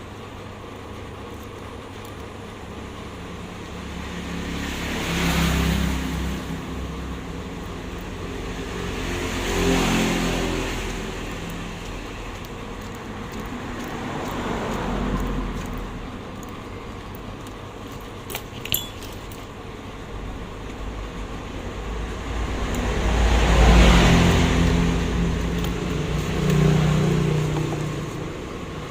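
Road vehicles passing one after another, each rising and fading over a few seconds, the loudest near the end. A single sharp click sounds about two-thirds of the way through.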